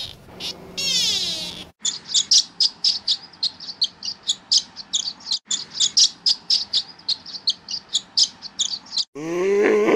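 Barn swallow twittering: a quick, chattering string of short high chirps, about four or five a second, starting about two seconds in and running for about seven seconds. Before it comes a different animal's gliding pitched call, and near the end a loud call from another animal cuts in.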